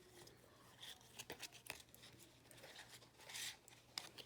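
Faint handling of tarot cards and their boxes: scattered light clicks and a brief rustle about three seconds in.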